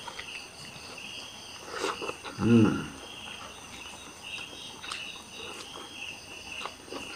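Crickets chirping steadily at night, a high pulsing trill. A short hummed vocal sound comes about two and a half seconds in, and there are a few faint clicks of eating.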